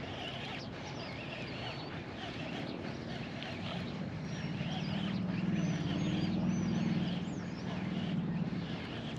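Small birds chirping and singing throughout, over outdoor background noise. A low motor drone swells up a few seconds in, is loudest in the middle, and fades near the end, like a vehicle or boat passing.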